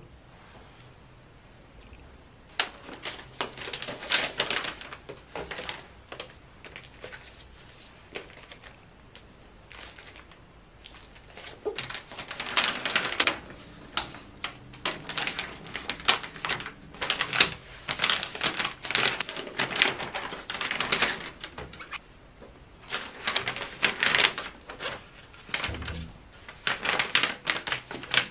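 Paper and a plastic mailer bag being handled: clusters of crinkling and rustling with short pauses, starting a couple of seconds in.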